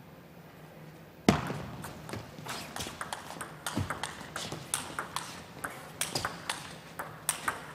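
Table tennis rally: the plastic ball clicks sharply off the rackets and the table in quick alternation, a click every third to half second. The rally opens with a loud knock about a second in.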